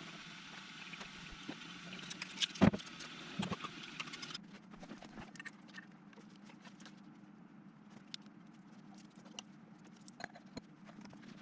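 Scattered small clicks and taps of hard objects being handled, over a steady low hum, with one louder knock about two and a half seconds in.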